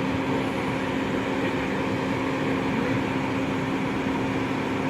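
A steady mechanical hum with one constant low tone, unchanging throughout.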